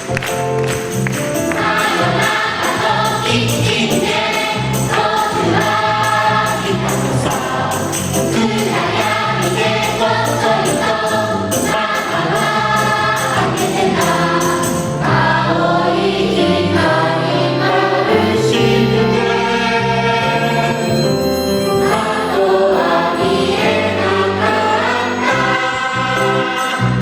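Children's choir singing a lively song with instrumental accompaniment, while jingling percussion keeps a steady beat.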